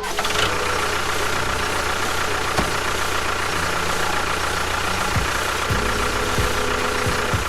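A motor running steadily: an even, noisy whirr with a faint steady hum, starting abruptly and cutting off near the end.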